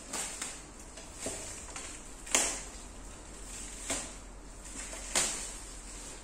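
Irregular knocks and clacks of aluminium floor plates being handled and fitted into an inflatable boat, about six in all, the loudest about two and a half seconds in.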